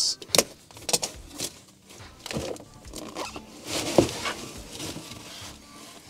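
Cardboard box being opened and handled: flaps scraping and rustling against each other, with several knocks, the sharpest about four seconds in, as an inner box packed with foam sheets comes into view.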